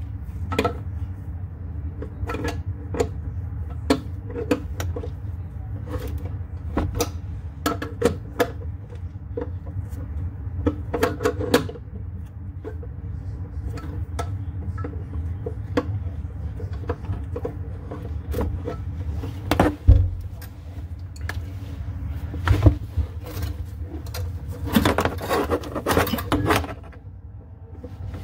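Scattered metallic clinks and knocks of hand tools and sink plumbing parts being handled, with a busier cluster near the end, over a steady low hum.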